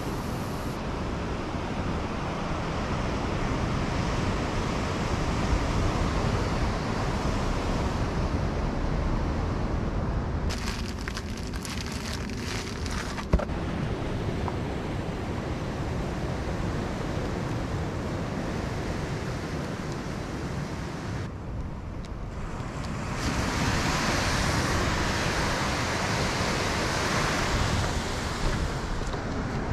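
Wind rushing over an action-camera microphone, over the wash of surf breaking against a sea-cliff rock ledge. There is one sharp click about thirteen seconds in.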